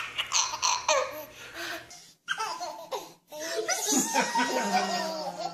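A baby laughing in repeated fits, breaking off briefly twice, about two and three seconds in.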